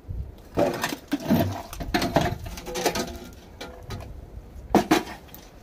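Rusty scrap iron pieces knocking and clanking against each other as they are handled and set down, a string of separate clatters with a sharp double clank near the end.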